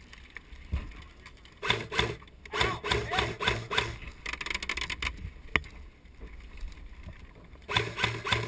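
Airsoft electric rifles firing on full auto: a rapid, even rattle of shots in two long bursts, the second starting near the end, with a single sharp crack a little past the middle.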